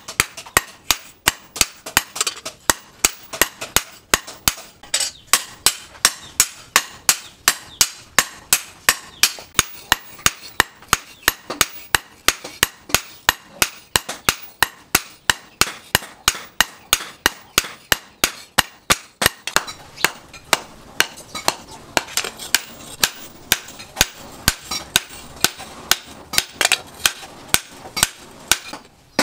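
Hammers striking a red-hot steel blade forged from a chainsaw on a small post anvil: a steady run of sharp, ringing metal-on-metal blows, about two to three a second, as the blade is hammered out.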